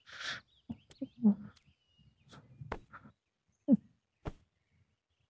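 A few brief voice sounds and several sharp knocks, with faint birds chirping in the background.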